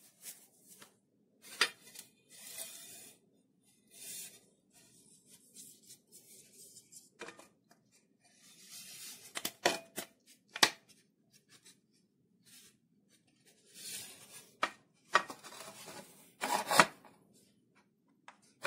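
Gloved hands handling an aluminium profile and setting it against a lathe's steel cross slide: a series of sharp light clicks and knocks of metal on metal, with soft rubbing and scraping between them.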